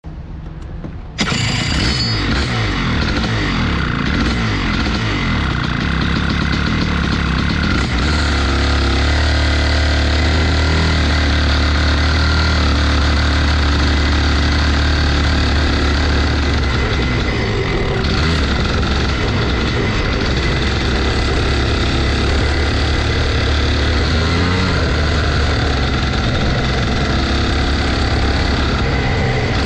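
Rotax 125 single-cylinder two-stroke kart engine running. It cuts in suddenly about a second in, holds a steady note for several seconds, then rises and falls in pitch as it revs.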